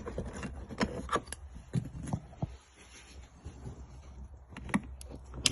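Scattered light clicks, taps and scrapes of small plastic trim covers being prised off a car's interior door panel, with a sharper click near the end.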